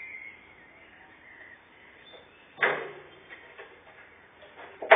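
Two sudden wooden knocks, one about two and a half seconds in and a louder one at the very end: loose wooden planks knocking as a cat pounces and bats at a mouse among them.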